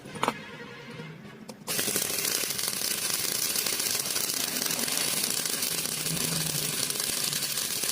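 Electric arc welding: a dense, steady crackle that starts abruptly about two seconds in, after a brief quieter spell with a single click.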